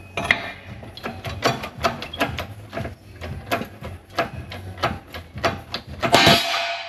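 Irregular scraping and clicking of metal tools working the rear bush out of a steel suspension wishbone, with a louder, longer scrape near the end.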